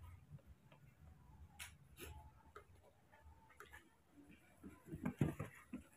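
Faint, scattered ticks and taps from baby monkeys scampering and playing on a carpeted floor among toys, with a few louder taps about five seconds in, over a low room hum.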